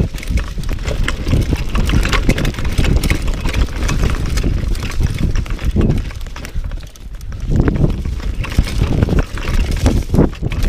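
Mountain bike riding fast down a leafy dirt trail: tyres rolling over dirt and leaves and the bike clattering over bumps, over a constant low rumble of wind on the camera microphone.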